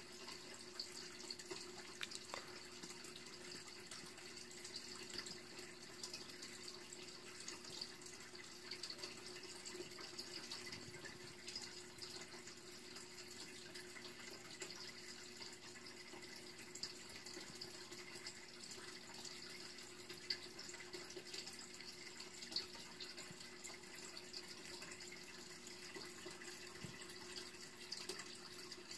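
Faint steady background hum and hiss, with a few scattered small clicks.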